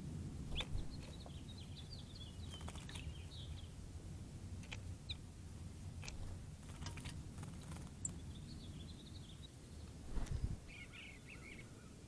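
Small songbirds chirping in short high twittering phrases, several times, over a steady low background rumble; a brief low thump near the end.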